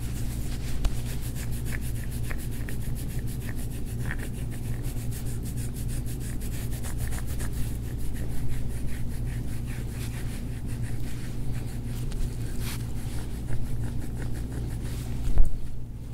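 Gua sha scraping tool rubbing over oiled skin on the forearm in quick, short, repeated strokes during soft-tissue scraping, with a steady low hum underneath. A single louder knock comes near the end.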